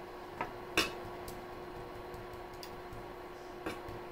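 A few light, sharp clicks and taps of kitchen handling, the clearest about a second in, over a steady low hum.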